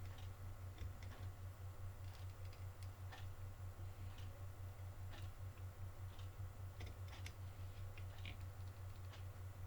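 Faint light clicks and taps of small tools and wires being handled during soldering work, over a low hum that throbs several times a second.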